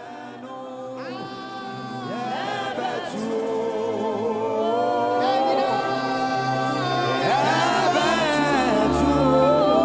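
Slow choral music: several voices singing sustained notes in harmony, fading in over the first few seconds, with a deep low part joining about eight seconds in.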